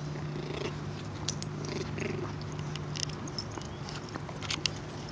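Puppies play-fighting with a dog: low play growls and several short, high squeaks and yips, over a steady low hum.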